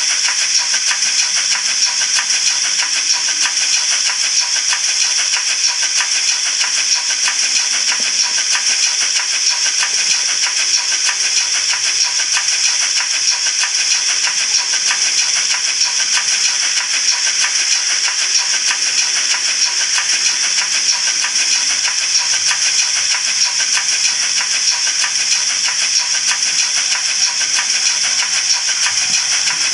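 Model steam locomotive running steadily on its track, heard from a camera riding on the train: a loud, even hiss with a fine fast rattle.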